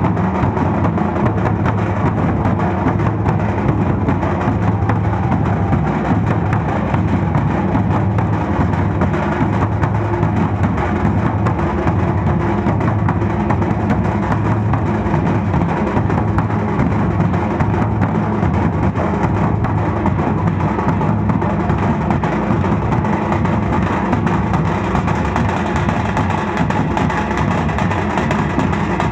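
Dhol-tasha drum ensemble playing: big barrel drums (dhol) and tasha kettle drums beaten together in a continuous, dense rhythm without a break.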